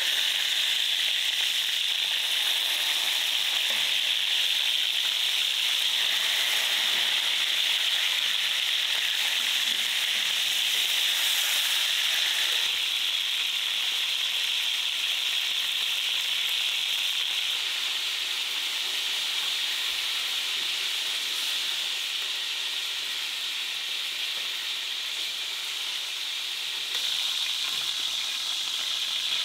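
Whole quails frying in oil in a cast-iron pan, a steady sizzle that eases slightly partway through and picks up again near the end.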